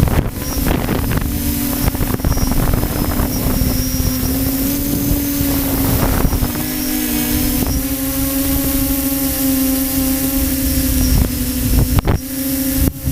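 A model aircraft's propeller motor humming at a steady pitch that wavers slightly, with gusty wind rumbling on the microphone; a sharp buffet of wind about twelve seconds in.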